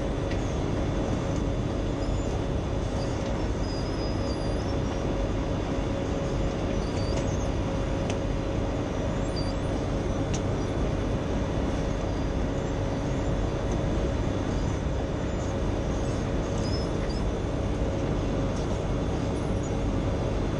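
Wirtgen asphalt milling machine running steadily under load: its diesel engine and cutting drum grinding along an asphalt dike, a dense rumble with a steady whine over it.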